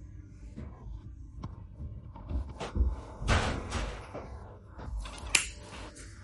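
Small pet nail clippers snipping a cat's claws: a few sharp clicks, the loudest about five seconds in, with handling noise as the cat is held.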